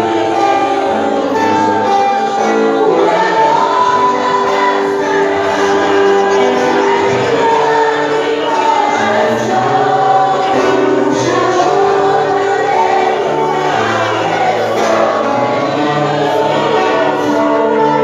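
Worship music: a group of voices singing together over sustained accompaniment.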